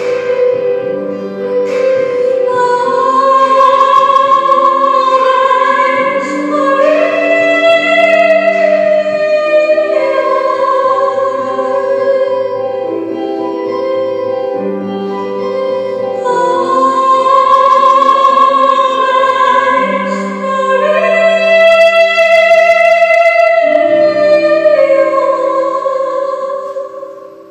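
Slow background music with singing that holds long notes; the music fades out near the end.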